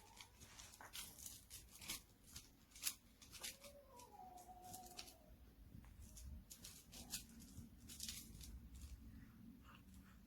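Dog chewing and tearing at a plush squeaky toy: a string of faint sharp clicks and short ripping sounds, with a brief faint tone about four seconds in.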